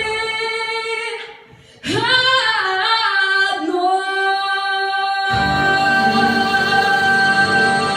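Female solo singer holding a note that fades out. She comes back in alone with a wordless run that slides up and settles on a long sustained note, and the backing music enters under it about five seconds in.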